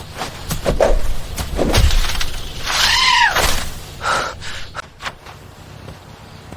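A string of sharp knocks and thuds, then about three seconds in a short pitched cry that rises and falls, followed by a briefer higher cry; it quietens near the end.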